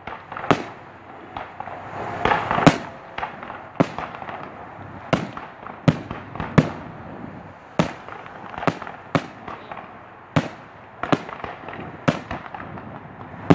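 Aerial fireworks bursting: a long irregular series of sharp bangs, roughly one every half second to second, with a denser, louder stretch about two to three seconds in.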